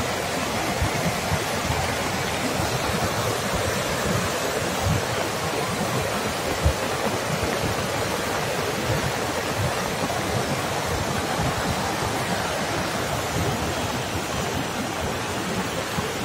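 Muddy floodwater of a swollen river rushing steadily past a bridge, with a few short low thumps in the rush.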